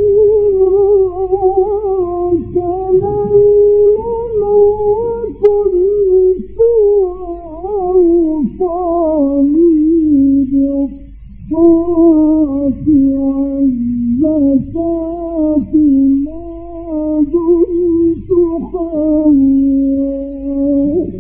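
Male Quran reciter's voice chanting in the ornamented Egyptian mujawwad style, drawing out long melodic notes that bend and trill, with a brief breath pause about halfway. A steady low hum from the old recording runs beneath, with a single click about five seconds in.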